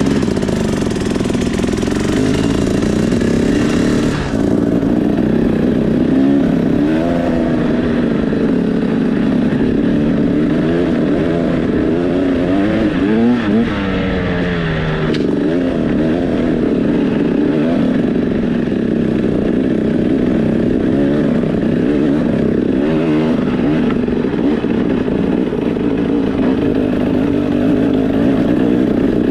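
KTM 300 EXC two-stroke enduro motorcycle engine with a Pro Circuit exhaust, running loud and steady as the bike is ridden. The revs rise and fall again and again with the throttle, most of all around the middle.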